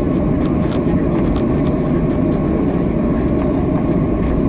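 Cabin noise of a Boeing 737-700 taxiing: its CFM56 jet engines at low power give a steady low rumble with a faint steady whine over it, and light ticks and rattles come through now and then.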